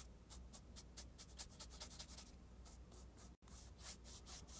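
Faint, quick strokes of a paintbrush brushing glaze onto stretched canvas, over a low steady hum.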